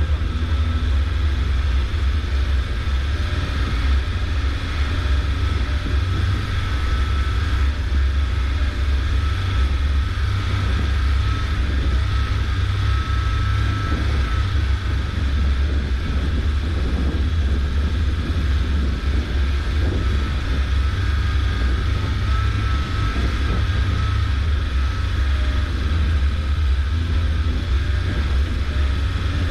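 Suzuki SJ413's four-cylinder engine and drivetrain running steadily as the vehicle drives, with a heavy, even low rumble and no change in pace.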